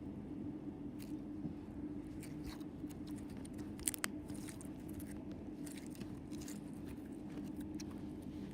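Homemade slime being squished and pulled in the hands, giving scattered small clicks and crackling pops, the sharpest about four seconds in, over a steady low hum.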